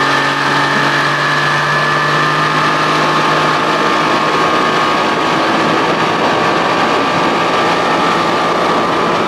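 Evinrude outboard, a two-stroke twin bored up from 25 to 30-35 hp, running steadily at low speed while it warms up.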